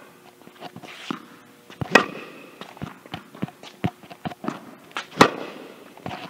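Tennis balls struck with rackets during a slice backhand rally drill. The sharp hits ring out in an echoing indoor court, two loud ones about two and five seconds in, with softer ball bounces and shoe scuffs in between.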